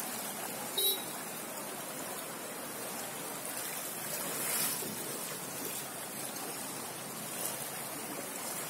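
Steady rushing hiss of heavy monsoon rain and fast-flowing floodwater. A brief beep sounds about a second in.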